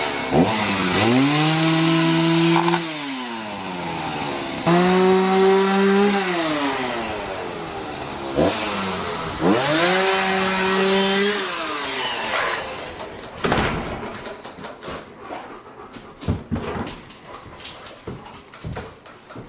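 Two-stroke chainsaw revved three times, each time rising in pitch, held at high speed for about two seconds, then dropping back toward idle. In the last several seconds it gives way to scattered knocks and clicks.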